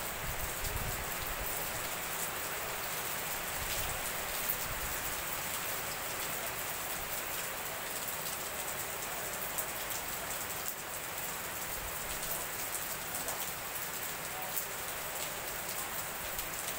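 Heavy rain falling steadily onto flooded paving and standing water: an even hiss with individual drops ticking through it.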